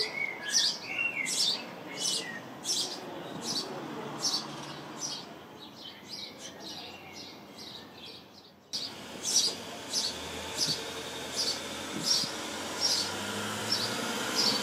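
House sparrow chirping repeatedly, a plain cheep about three times every two seconds.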